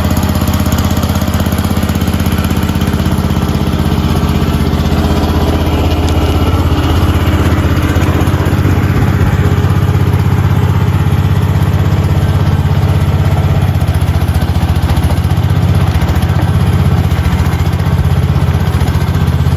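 An engine running steadily at idle, close and loud, getting a little louder about a third of the way in.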